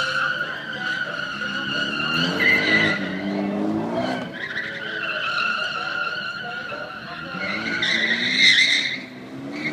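Ford Focus ST hard-cornering through an autocross course, its tyres squealing in long wavering stretches with a short break about four seconds in. The engine revs up under the squeal twice, a couple of seconds in and again near the end.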